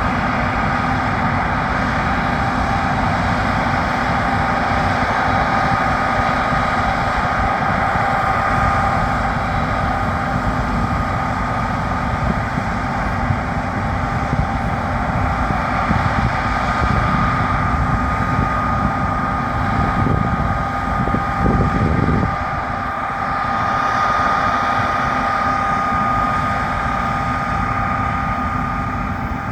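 Harvest machinery running steadily: a continuous engine drone with a constant high whine over it, swelling briefly in the low rumble about two-thirds of the way through.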